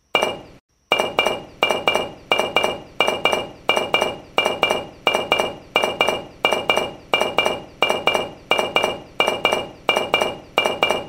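Sharp metallic clinks repeated evenly about three times a second, each strike ringing briefly before the next. They start and stop abruptly out of digital silence, like a dubbed-in construction sound effect.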